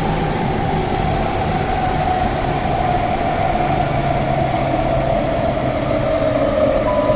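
Athens Metro Line 2 train running through a tunnel, heard from inside the carriage: a steady rumble and rush of wheels on rail with a whine that slowly falls in pitch.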